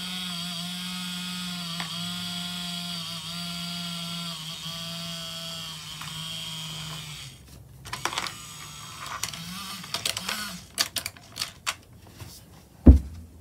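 Small electric motor of a Take-n-Play Owen incline toy running with a steady hum as the incline works, stopping about seven seconds in. A series of clicks and knocks follows, with a sharp knock near the end.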